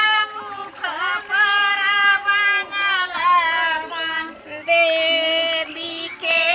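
Women singing a Kajri folk song, a paddy-transplanting work song: a high female voice holding long notes in phrases of a second or two, each broken by a short pause.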